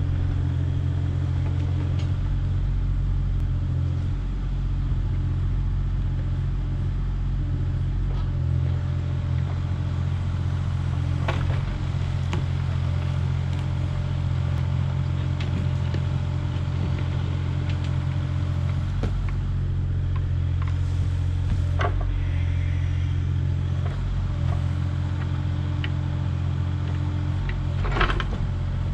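Compact excavator's diesel engine running steadily while the bucket digs into a soil bank. A few sharp knocks from the digging come through, the loudest near the end.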